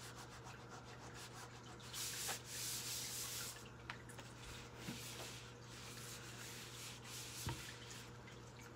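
A disinfectant wipe rubbed over workstation surfaces in a few soft swishing strokes, with a few light knocks.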